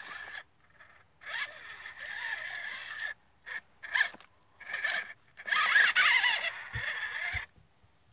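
Redcat Barrage Gen2 micro RC crawler's small electric motor and gearbox whining in short stop-start bursts of throttle as it climbs over rocks. The longest, loudest burst comes a little past halfway, with two low thumps near the end.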